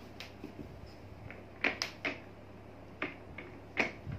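Several sharp, irregularly spaced clicks and knocks from a newly assembled mesh office chair as its seat and armrest are pressed down and worked by hand.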